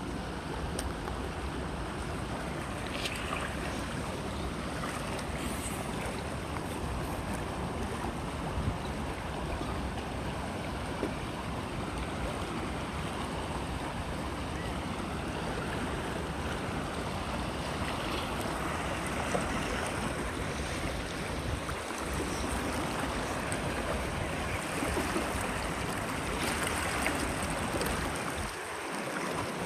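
Waterfall's falling water rushing steadily.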